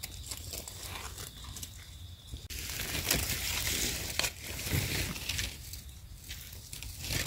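Dry fallen leaves rustling and crackling as hands dig mushrooms out of the leaf litter, with a knife scraping as a stem is trimmed. The crackling gets denser about two and a half seconds in.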